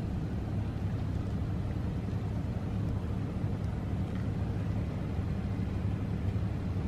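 A steady low rumble, even throughout, with no distinct knocks or clicks.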